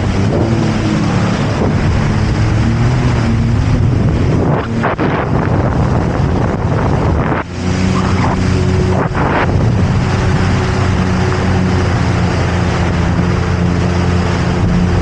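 Jet ski engine running under way, with wind buffeting the microphone and water noise; the engine note dips briefly about seven and a half seconds in, then holds steady.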